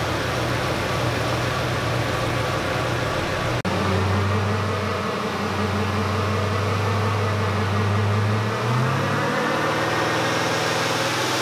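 Twin-turbo LS V8 in a Toyota 80 Series Landcruiser running steadily. After an abrupt break it runs on the dyno, and its pitch climbs near the end as the engine speeds up.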